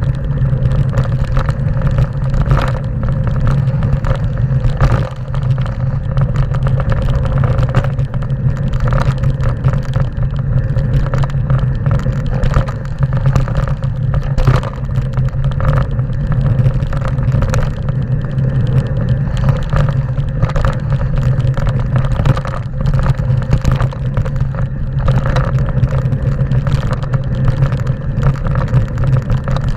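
Mountain bike riding fast down a rough gravel trail: a constant loud rumble of tyres and wind on the handlebar-mounted camera, broken by frequent rattles and knocks as the bike clatters over stones.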